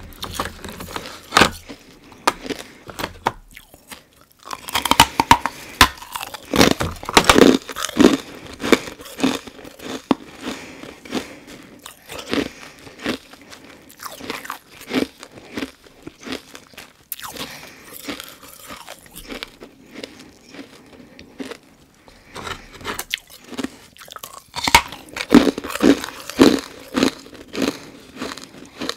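Close-miked crunching of carbonated ice being bitten and chewed. A dense run of loud crunches starts about four seconds in and thins to slower chewing, then a fresh bite brings another run of loud crunches near the end.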